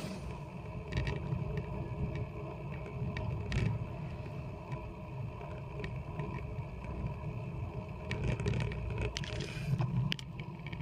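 Wind rushing over a bike-mounted camera's microphone while a bicycle rolls along an asphalt road, with a steady low rumble from the tyres and wind, and scattered clicks and rattles throughout.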